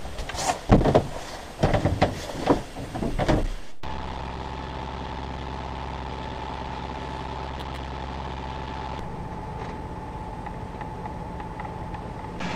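A few irregular knocks and clatters in a small sailboat's cabin, then a steady engine drone as the boat runs under power, its tone shifting slightly about nine seconds in.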